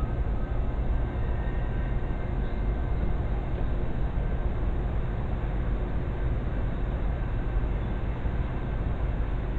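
A vehicle engine idling: a steady low rumble with a faint steady whine above it.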